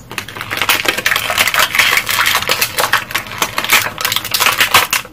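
Plastic toy packaging and Beyblade parts being handled: a dense run of crinkling and rapid irregular clicks as the pieces are pulled out of the package.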